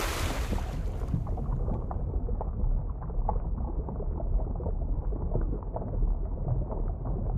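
Underwater ambience sound effect: a muffled low rumble with many short bubbling pops, opening with a bright whoosh that fades within the first second or two.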